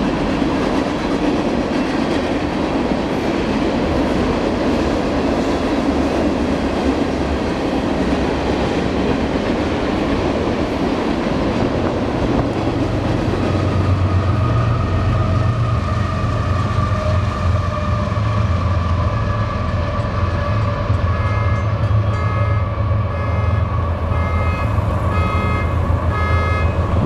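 Union Pacific freight train passing: freight cars rumbling and clattering over the rails, then from about twelve seconds in the low drone of diesel locomotives going by. A grade-crossing bell rings steadily at a regular beat through the last several seconds.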